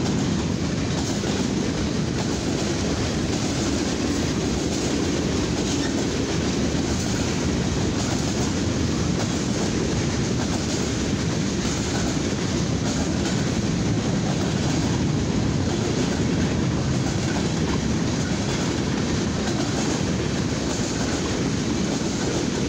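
Freight cars of a mixed freight train rolling past at about 30 mph: a steady noise of steel wheels on the rails.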